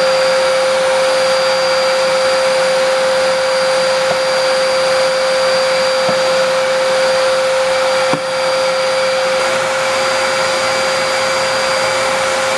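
Vacuum cleaner running steadily, its hose nozzle sucking up dry pine needles from a wood floor: a loud even rush of air with a steady hum. A brief click about eight seconds in.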